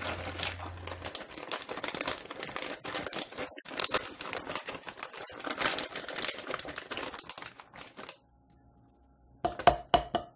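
Plastic bag of shredded mozzarella crinkling and rustling as the cheese is scooped out of it, for about eight seconds. Then two sharp knocks near the end, a plastic measuring cup tapped against the saucepan.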